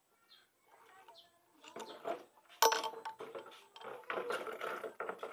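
Irregular metal clinking and rattling of a steel tool worked inside a scooter's front wheel hub, against the broken remains of the wheel bearing. It starts about two seconds in, with a sharp clink shortly after and denser clattering near the end.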